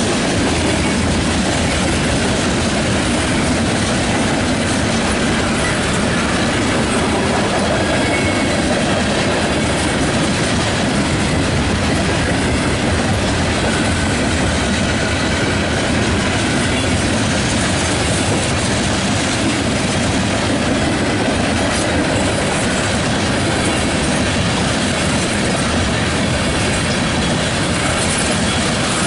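Freight train of tank cars rolling past: a steady, loud rumble and clatter of steel wheels on the rails.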